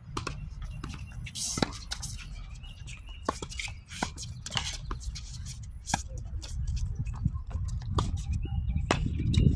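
Tennis balls struck by rackets and bouncing on a hard court during a doubles rally, a string of sharp hits, some in quick volley exchanges. A low rumble runs underneath and grows louder near the end.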